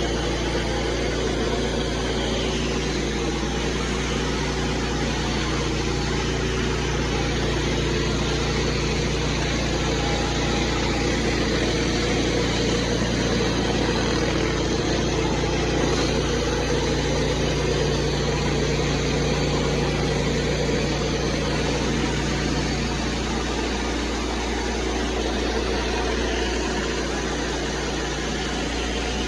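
Pressure washer's engine running steadily under a constant hiss of spray, its low hum shifting slightly near the end.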